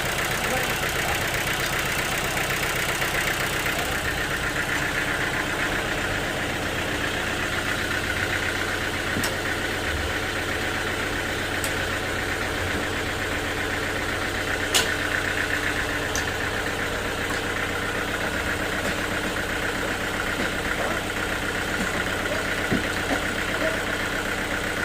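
Sawmill machinery running with a steady, unchanging mechanical drone, and a single sharp click about fifteen seconds in.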